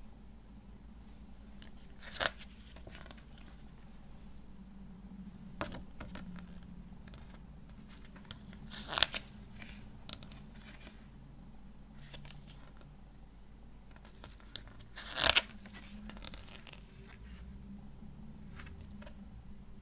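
Paper pages of a CD booklet being turned by hand: three brief, crisp rustles several seconds apart, with soft handling of the paper in between.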